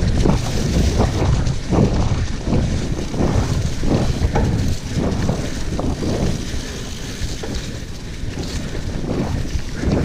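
Mountain bike ridden fast down leaf-covered dirt singletrack: wind rushing over the action camera's microphone, tyres rolling over leaves and dirt, and the bike rattling and knocking irregularly over bumps.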